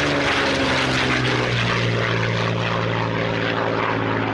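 Propeller-driven aircraft engine running with a steady drone, its pitch sinking slightly in the first second or so.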